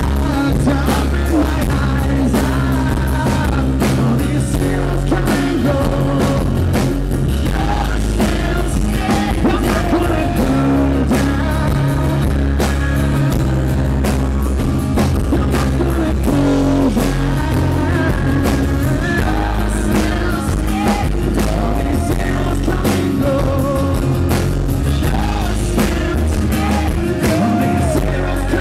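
Live acoustic rock performance: a male singer singing into the microphone over strummed acoustic guitars, amplified through the PA.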